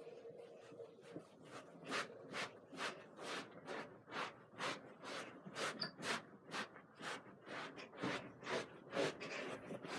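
Rhythmic noises of a person dancing in a small room: short bursts about two a second, starting about a second in.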